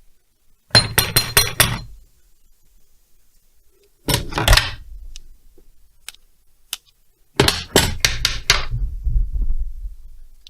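Socket ratchet clicking in three short runs of rapid clicks as crankcase nuts are worked loose.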